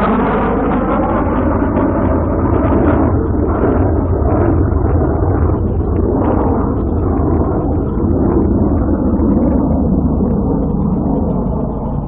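Messerschmitt Me 262 jet fighter flying over, its twin Junkers Jumo 004 turbojets making a loud, continuous rushing noise. Its pitch sweeps early on, and its higher tones die away as it draws off. It is a wartime field recording with little treble.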